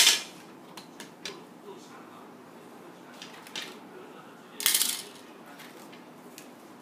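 Clear hard-plastic packaging box being handled and opened: a sharp plastic clack at the start, a few light clicks, and a brief louder scraping rustle about four and a half seconds in as the battery case and its paper insert are pulled out.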